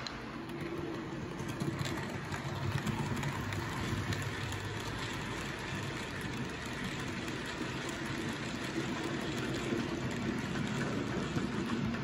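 Model freight train running through the layout's sidings: a steady rumble of wagon wheels on the track with faint scattered clicks.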